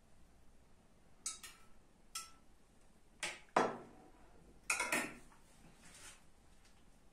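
A metal spoon clinking and knocking against a small metal pot and a metal baking tray as oil is spooned onto the tray. There are several sharp clinks, the loudest about three and a half seconds in, and a quick cluster about five seconds in.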